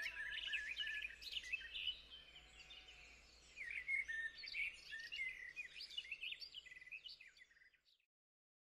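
Faint birdsong: small birds chirping and twittering in quick irregular phrases, over a low steady background noise; it fades out and stops about seven and a half seconds in.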